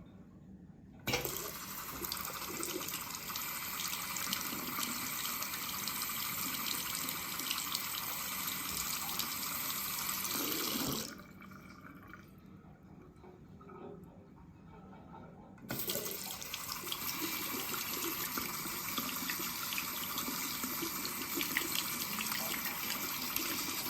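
Water running from a tap, turned on suddenly about a second in and running steadily for about ten seconds. It is shut off, and about five seconds later it is turned on again and keeps running.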